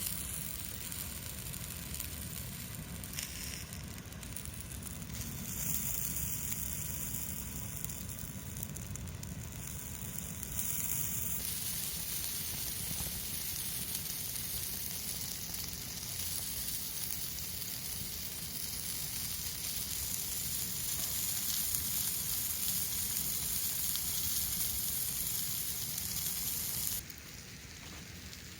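Steady sizzling hiss of food cooking over a wood fire in a Picogrill-type fire pit. It gets louder about ten seconds in and drops near the end.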